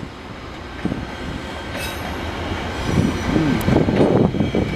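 VIA Rail passenger train of LRC cars rolling past on the tracks, the rumble of wheels and cars growing louder about three seconds in.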